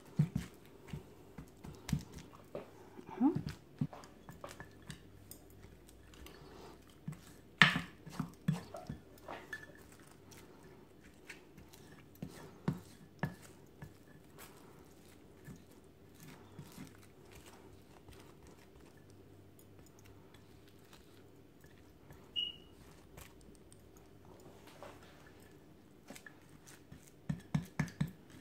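Sporadic light knocks, clicks and scrapes of a metal potato masher and then a small round cup pressing and smoothing a warm sesame-and-honey brittle mixture in a plastic-wrapped glass dish, the loudest knock about eight seconds in.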